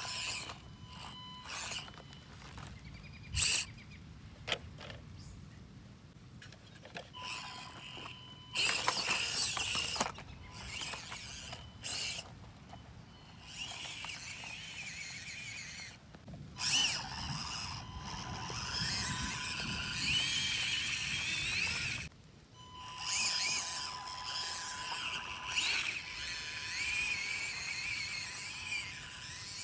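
Small electric motor and gearbox of an Axial SCX24 1/24-scale RC crawler whining as it drives through loose dirt. The whine comes and goes and rises and falls in pitch with the throttle, broken by several short bursts of louder noise.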